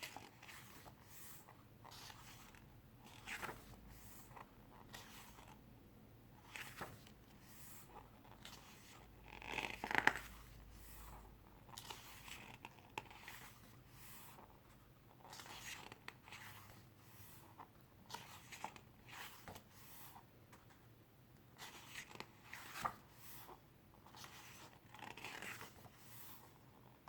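Photobook pages being turned one after another: quiet paper rustles and slides every second or so, with one louder rustle about ten seconds in.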